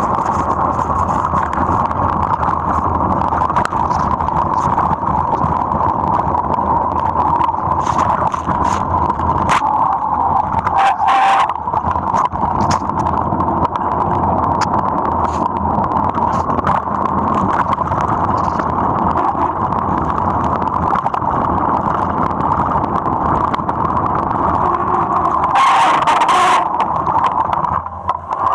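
Mountain bike riding fast down a muddy dirt trail: a steady rushing noise from the knobby tyres and the bike's speed, broken by short knocks and rattles. A louder, gritty burst comes near the end as dirt sprays off the front tyre.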